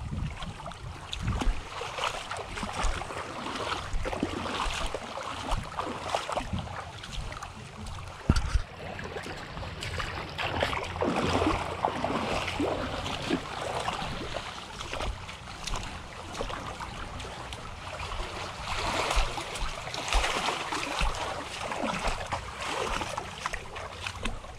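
Footsteps wading and splashing through shallow sea water over rocks and pebbles, with small waves lapping along the shore.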